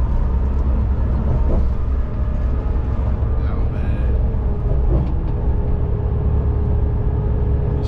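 Inside a charter bus cruising on the highway: a steady low rumble of engine and tyres, with a constant drone over it.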